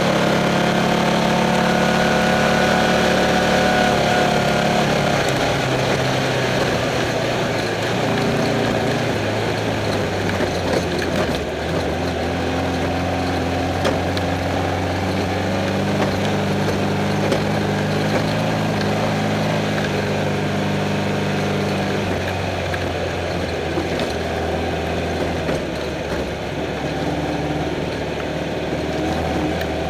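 Off-road race car's engine heard from inside the car, running under way with its pitch stepping up and down several times as the throttle and gears change, over a steady noisy rush.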